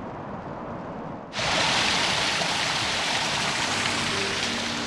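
Steady rushing of a mountain stream, which cuts in suddenly a little over a second in and drowns out a quieter low hiss.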